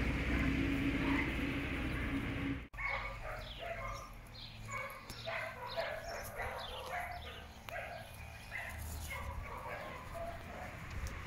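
Rough collie puppies yipping and whimpering in many quick, short, high calls, starting about three seconds in. Before that a steady low hum runs and stops abruptly.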